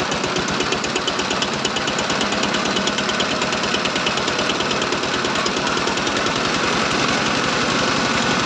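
Single-cylinder diesel engine running steadily with a rapid, even knock, under load driving a screw extruder that presses out dough strands.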